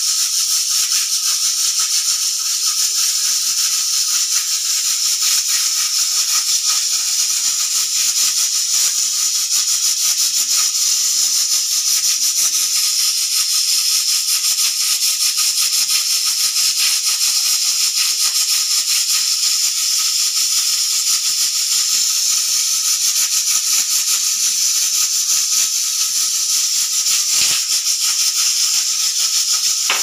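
Aluminium stovetop pressure cooker venting under pressure: steam whistles and hisses steadily out past the weight valve, which rattles rapidly on its nozzle without a break.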